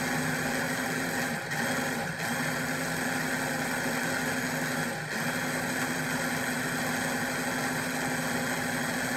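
Electric food processor motor running steadily as it chops red onion, with a steady hum that briefly sags three times, about a second and a half, two seconds and five seconds in. The owner finds it sluggish, cutting the onion but not grinding it well.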